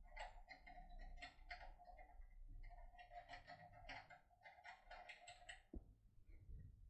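Faint metallic scratching and clicking of a comb pick and tension wrench being worked inside a door lock cylinder, in quick, irregular strokes.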